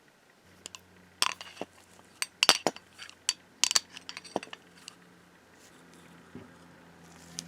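Small metal parts of a vintage pinking machine clinking and tapping against each other and a hard surface as they are handled, a rapid scatter of sharp clinks over a faint low hum.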